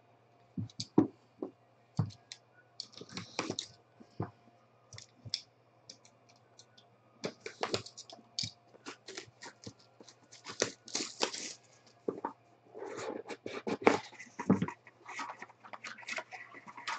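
Hands opening a sealed trading-card hobby box: plastic wrap crackling and tearing, and cardboard and a foam insert scraping and tapping, in scattered short bursts over a low steady hum.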